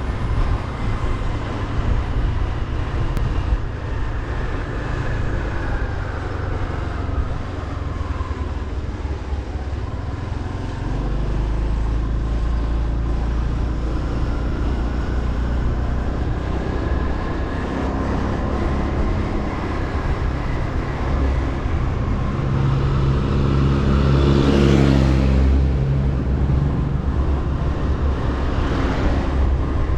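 Motorbike engine running on the move, its pitch rising and falling with the throttle, over heavy wind rumble on the microphone. A louder swell of engine sound comes near the end.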